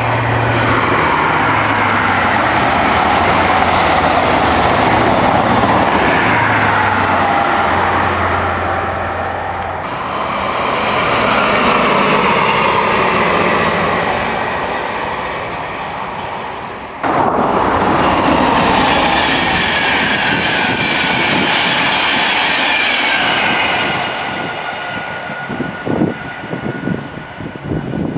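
Passenger trains passing at speed on an electrified main line, one after another. First an InterCity 125 HST, its diesel power cars giving a steady low engine hum under the rush of wheels and air. About ten seconds in comes a Class 158 diesel multiple unit, and then another express train with a high, steady whine over the rush.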